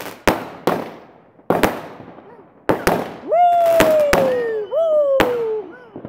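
Fireworks bursting: about seven sharp bangs that each trail off. In the second half a loud, long falling tone starts twice over them.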